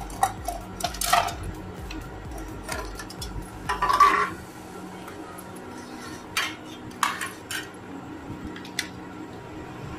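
Stainless steel plates knocking and clattering as an upturned plate is tapped to release a set slab of peanut-jaggery chikki. There is a cluster of knocks in the first second and the loudest clatter about four seconds in, then scattered sharp clicks as the brittle sheet is broken up.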